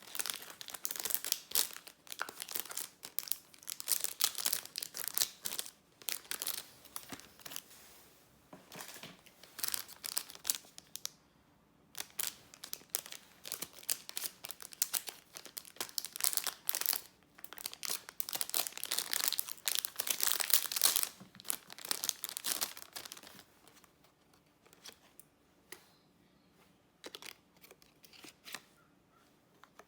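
Packaging being crinkled and torn open by hand, in bouts of dense crackling, then dying down to a few scattered small clicks for the last several seconds.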